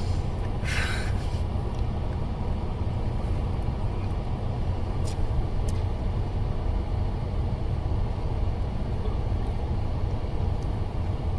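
Steady low rumble of a running vehicle, with a short noisy burst about a second in and two faint clicks around five seconds.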